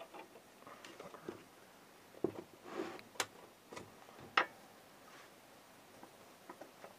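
Scattered light clicks and knocks from a Honda GX160 engine's piston and connecting rod being worked out of the cylinder by hand, with a few sharper knocks about three and four and a half seconds in.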